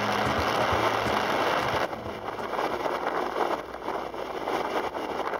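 Riding noise from a moving motorcycle on a wet road: wind on the microphone with engine and tyre noise. About two seconds in it cuts abruptly to a quieter, thinner stretch of the same kind of noise.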